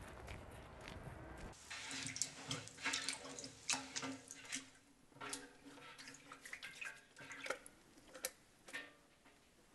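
Hands being washed in a basin of water: irregular splashes, drips and trickles as water is scooped up in cupped hands and the hands are rubbed together, starting about a second and a half in.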